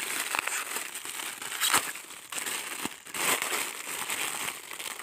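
Clear plastic packaging crinkling and crackling as it is unwrapped by hand, with a loud crackle about a second and a half in.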